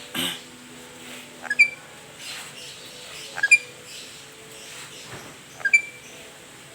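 Black-capped lory giving short, sharp squeaky calls, each a quick double note, three times about two seconds apart. There is a brief rasp right at the start.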